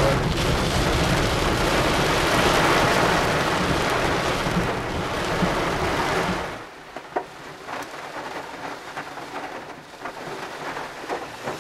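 Heavy rain drumming on a car's roof and windshield, heard from inside the cabin. About six and a half seconds in it drops abruptly to a much quieter patter with scattered drips and taps.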